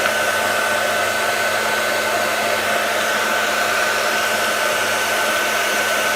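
Hot-air blower running steadily, a rushing airflow with a constant high whine, heating a phone's label to soften its adhesive.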